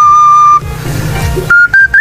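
Background music: a flute holding one long note over a low drone, breaking off after about half a second into a soft breathy hiss, then picking up again higher in short stepped notes near the end.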